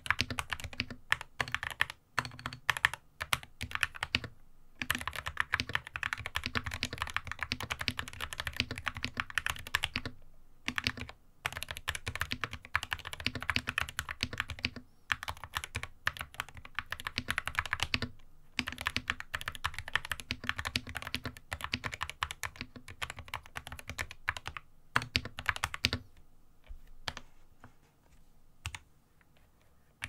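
Typing on a GamaKay MK61 61-key mechanical keyboard with spray-lubed Gateron Optical Yellow linear switches: a fast run of keystrokes with short pauses between phrases, thinning to scattered presses near the end.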